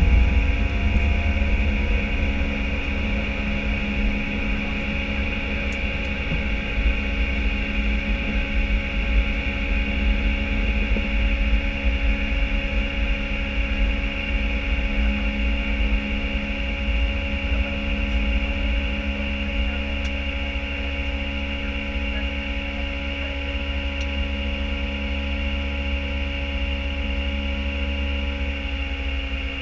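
Flight-deck noise of an Airbus A319 at takeoff thrust as it lifts off and climbs: a steady deep rumble and hum with a few held tones from its CFM56 engines and the airflow. It is louder and rougher for the first couple of seconds while the wheels are still on the runway, then settles into an even drone.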